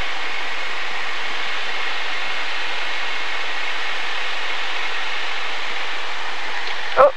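Steady cockpit noise of a Grumman single-engine light airplane in cruise descent: an even, unchanging hiss of engine and airflow. A brief sharp click comes near the end.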